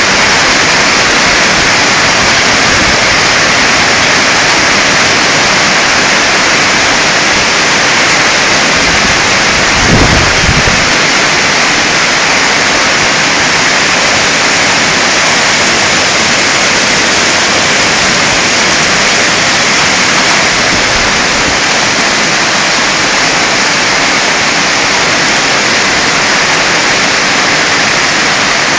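Hailstorm with heavy rain pelting down: a loud, dense, unbroken hiss. A brief low thump about ten seconds in.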